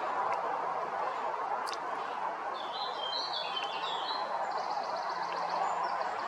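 Birdsong over a steady background rush: a burst of high chirping notes about two and a half seconds in, then a fast trill of evenly spaced high notes from about four and a half seconds.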